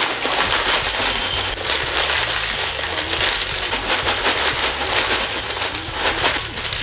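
Cornflakes poured from a plastic bag into a ceramic bowl: a continuous dense rattle of flakes landing, mixed with the crackle of the bag.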